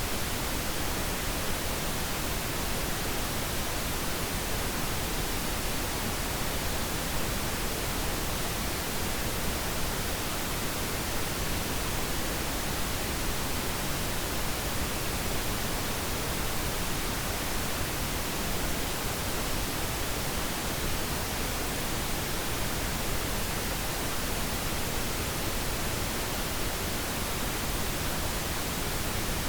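Steady pink noise: an even, unchanging hiss with no breaks or changes.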